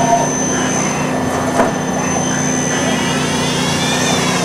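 Okuma LB9 2-axis CNC slant-bed lathe running an automatic cycle: a steady machine hum with a short click about a second and a half in, and a whine that rises and then falls in pitch near the end. The machine runs quietly and smoothly.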